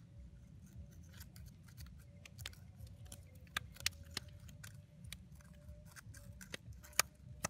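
Scattered sharp clicks and clinks of coral rubble and stones being shifted by hand at an octopus hole in the reef, over a steady low rumble.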